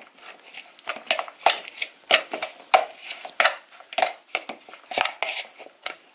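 Teaspoon stirring shredded chicken and spring onion filling in a plastic mixing bowl: irregular clicks and scrapes of the spoon against the bowl and the wet filling, about two a second.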